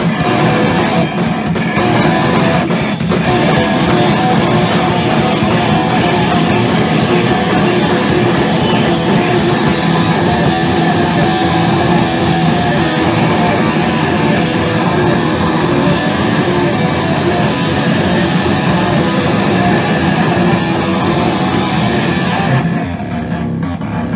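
Loud live rock band playing: electric guitar and drum kit together. Near the end the top end thins and it gets a little quieter.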